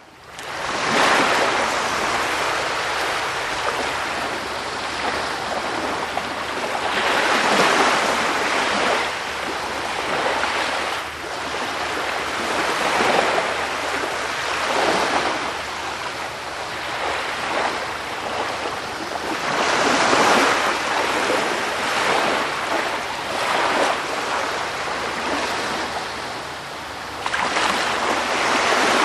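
Sea waves washing on a shore, the surf swelling and falling back every few seconds. It fades in at the start, and the level jumps up suddenly near the end.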